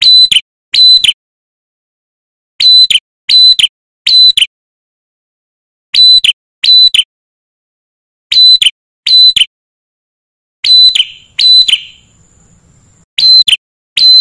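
Male ashy tailorbird calling: loud, clipped whistled notes in quick pairs and threes, each a high steady note that drops at its end, with short silent pauses between the groups.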